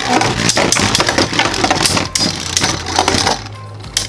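Two Beyblade Burst tops, Royal Genesis G5 against Venom Devolos, spinning in a plastic stadium: their tips whir over the floor with rapid clacking and rattling hits as they collide. About three and a half seconds in, the whirring thins out, leaving scattered clacks.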